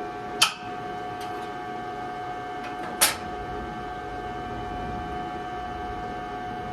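A steady electrical hum runs throughout, with two sharp metallic clicks about two and a half seconds apart.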